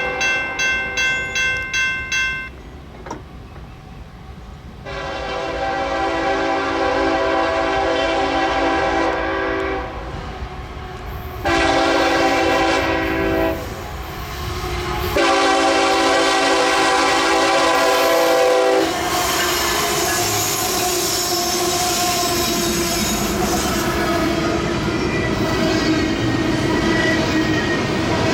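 A bell rings in about six quick, even strokes. Then a CSX locomotive's air horn sounds a chord in a long blast, a short blast and another long blast, and the train rolls past with wheels clattering on the rails.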